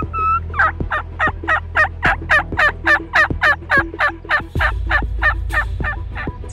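Turkey mouth call worked as a hen yelping: a long, evenly paced series of about twenty yelps, about four a second, to draw in a gobbler.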